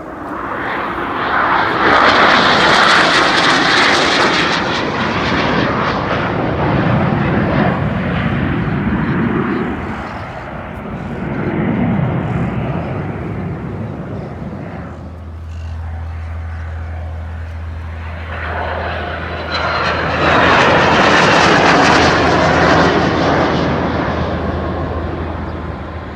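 Jet aircraft flying past in an air display, a loud rushing engine noise that swells twice, about two seconds in and again past the twenty-second mark, fading in between and near the end.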